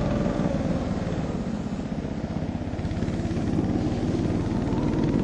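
Husky mini snowmobile's engine running as it is ridden, a steady run with a fast pulsing beat. Its speed dips slightly in the middle and picks up again near the end.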